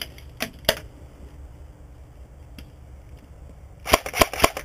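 Airsoft gunfire: two sharp cracks within the first second, then a quick run of four about four seconds in.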